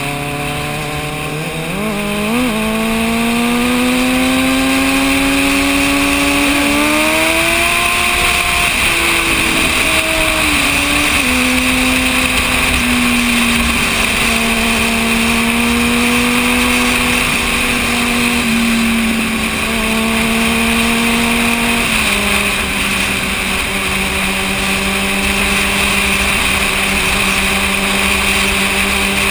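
Sport motorcycle engine under way, its note climbing over the first several seconds with a couple of quick jumps, then settling and dropping in a few steps as it eases off. Steady wind rush rides over it.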